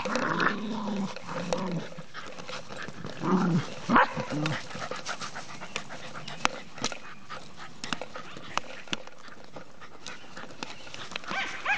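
Terriers growling in bursts, strongest at the start and again around three and a half seconds in, while they bite at a corrugated plastic drain pipe. Sharp clicks and knocks of teeth and paws on the plastic are scattered throughout.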